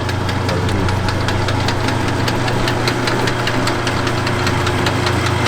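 Metal lathe running: a steady low hum with a fast, even ticking, as a shift-knob blank turns in the chuck while its wobble is measured.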